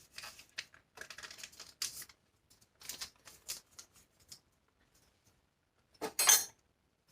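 Paper seasoning packet being handled and torn open: short rustling and tearing noises in quick succession for about four seconds, then one louder brief rustle about six seconds in.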